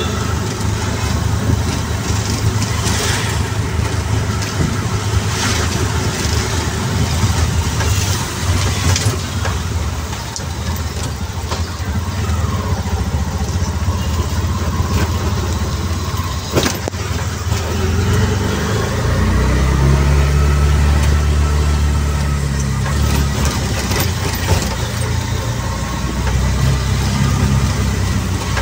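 Auto rickshaw's small engine running in road traffic, with a continuous low engine hum under the noise of the street. Past the middle its note settles into a steadier, stronger low hum for several seconds.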